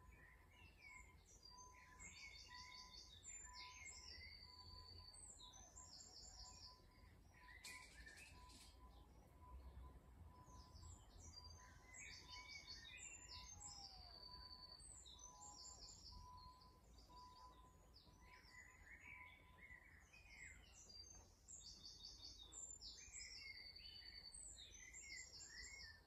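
A songbird sings three times, about ten seconds apart. Each song is a few seconds of high, fast trills and chirps, over a faint low background rumble.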